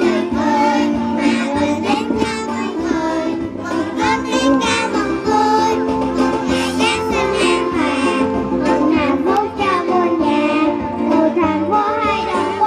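A group of young children singing a Christmas song over a recorded backing track.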